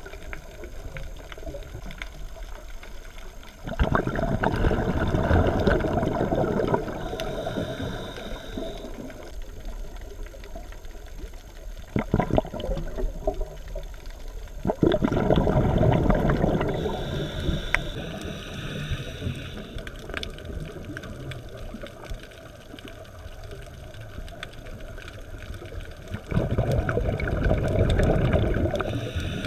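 Scuba diver breathing through a regulator, heard underwater: three long bursts of exhaled bubbles rushing and gurgling, about eleven seconds apart, with quieter hissing between them.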